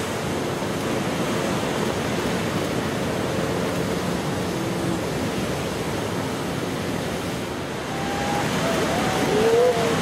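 Steady rushing roar of heavy ocean surf and wind. Near the end, distant voices call out and whoop over it.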